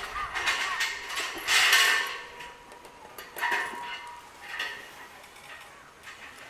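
Metal chain rattling and clanking as a young African elephant pulls and swings a tire chained to a concrete post, in a few short bursts, the loudest about a second and a half in and two smaller ones later.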